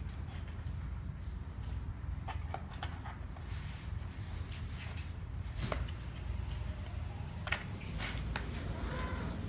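Paperboard box being folded by hand: scattered taps, creaks and rustles as flaps are creased and tabs tucked in, with a sharper click about seven and a half seconds in. A low steady hum sits underneath.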